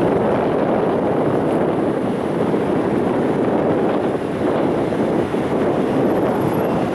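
Steady wind noise on the microphone, with small waves washing on the sand.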